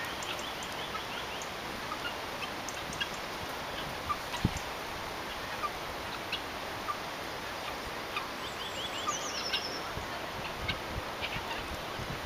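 Birds calling over a steady outdoor hiss, in quick runs of short high notes: one run near the start and a falling run about two-thirds through. A single short knock about four seconds in.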